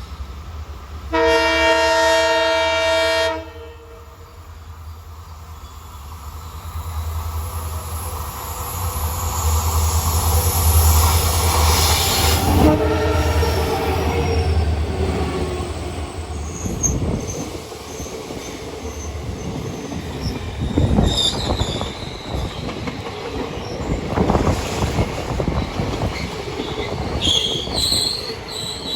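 Twin Indian Railways diesel locomotives: a horn blast about a second in, lasting about two seconds, then the low rumble of the engines builds as the train pulls away, with wheels clicking and rattling over the rails later on.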